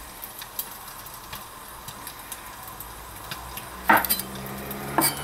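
A cleaver slicing garlic cloves on a wooden cutting board: soft taps, then two sharper chops about four and five seconds in. Near the end a rice cooker starts playing its electronic tune.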